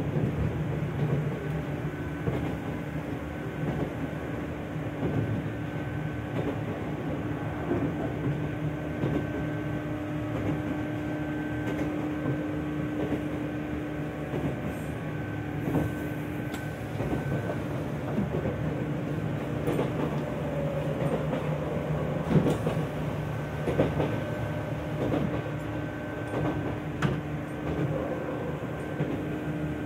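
Izukyu 2100 series electric train, a rare low-tone car whose TDK806-series traction motors sound like the JNR MT54, running at a steady speed and heard from inside the car. A steady low motor and gear whine sits over rumbling wheel and track noise, with occasional irregular clicks from the rails.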